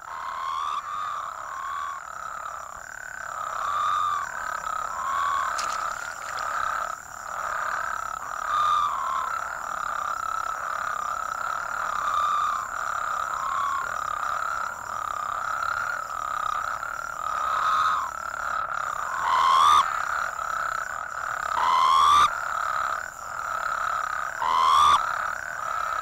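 Colorado River toads (Bufo alvarius) calling: short trills overlapping in a continuous chorus, all in one narrow middle pitch band, with a faint steady high whine behind. Three louder calls, each rising in pitch, stand out in the last third.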